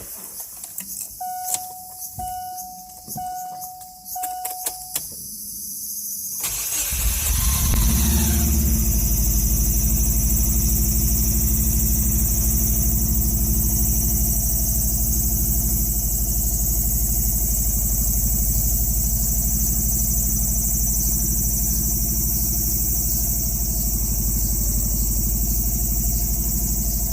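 Four short electronic beeps with a few clicks, then the 2002 Subaru Legacy's flat-four boxer engine cranks and catches with a brief whirring "kyurururu" at start-up before settling into a steady idle. The uploader suspects the clutch or the starter motor's overrunning clutch; the dealer found the belts OK. The noise comes on the first start of the day or after a stop of two to three hours or more.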